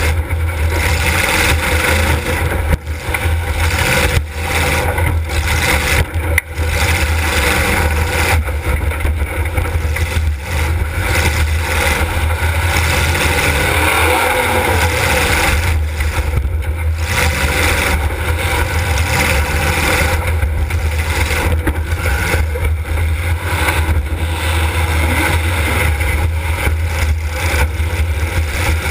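Demolition derby car's engine running hard, loud and continuous, heard from on board the car, with a few brief dips in level in the first several seconds.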